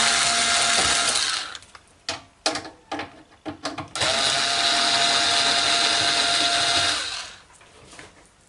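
Power screwdriver running as it backs out the cover screws of a DVD home cinema unit. It runs until about a second in, gives way to a few clicks and rattles of the bit and screws, then runs again for about three seconds and stops.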